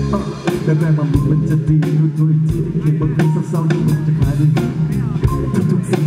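Live rock band playing: drum kit keeping a steady beat under electric guitars and a bass guitar holding a low note.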